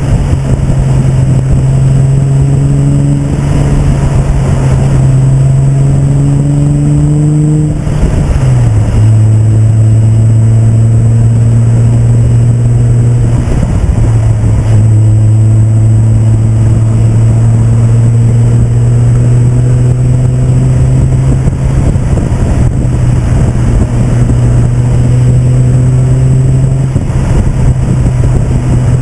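Nissan 350Z's V6 engine pulling steadily on the road, its note climbing slowly with the revs, dropping sharply about eight seconds in as the revs fall, then climbing slowly again, with road and wind noise underneath.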